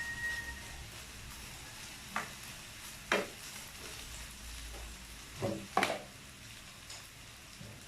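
Fried rice sizzling in a pan while being stirred, with a utensil knocking and scraping against the pan four times.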